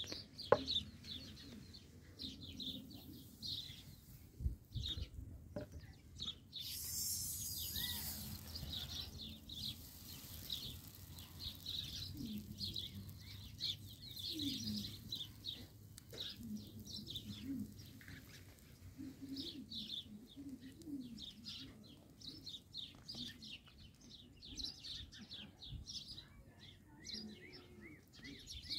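Small birds chirping over and over, with the lower clucking calls of chickens now and then. A brief hiss comes about seven seconds in.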